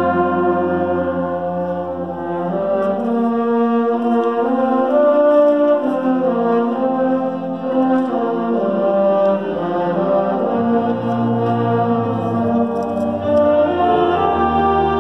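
High school concert band of woodwinds and brass playing long held chords. The low bass notes drop out about a second in and come back near the end.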